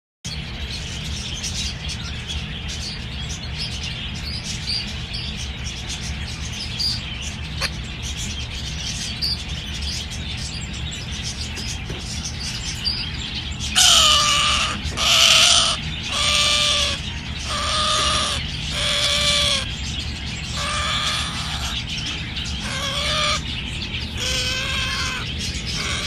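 A steady low hum with faint chirps, then from about halfway a lory parrot gives about ten loud, repeated calls roughly a second apart, each a short held cry.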